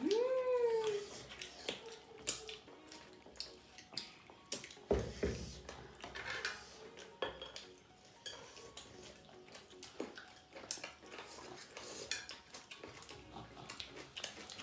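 Forks and spoons clinking and scraping on ceramic plates during a meal, in many scattered light clicks. A short rising-then-falling hummed voice right at the start, and a soft thump about five seconds in.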